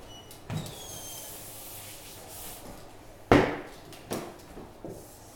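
Whiteboard being wiped clean with an eraser, a soft rubbing hiss. This is followed by one sharp knock about three seconds in and a lighter tap a second later.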